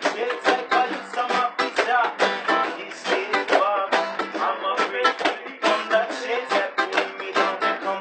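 A ukulele and two acoustic guitars strummed together in a steady, brisk rhythm.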